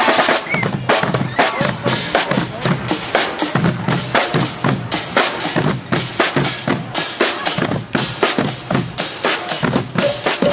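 A Guggenmusik carnival band's drum section, with bass drums, snare drums and cymbals, playing a loud, fast, steady marching beat of about four strokes a second.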